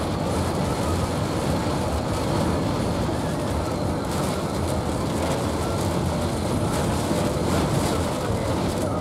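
Steady rumble of a vehicle driving through heavy rain, heard from inside the cabin: tyre and road noise mixed with rain on the windshield and roof.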